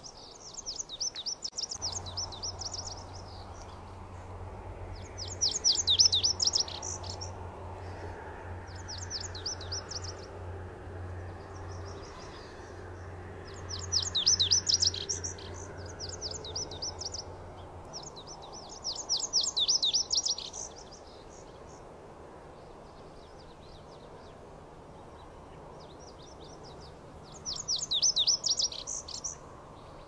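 Male lazuli bunting singing: short, fast, high-pitched phrases of varied notes, each a second or two long, repeated every few seconds.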